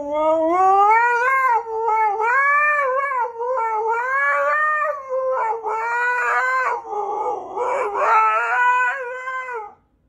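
Husky howling: one long, wavering howl that rises in pitch at the start, turns rough about seven seconds in, and breaks off near the end.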